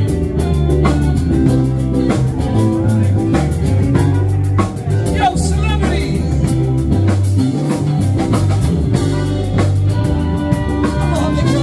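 Live band playing: drum kit and electric bass with guitar, and a voice singing over a strong bass line and steady drum beat.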